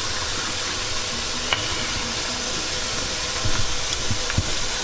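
Steady sizzling hiss of pans cooking on the stove, with a wooden spoon stirring rice in a saucepan and a few light knocks against the pan.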